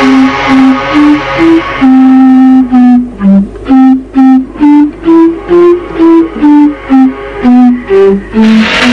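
A tune played on an ocarina: a slow melody of single clear notes, most of them short, a few held longer.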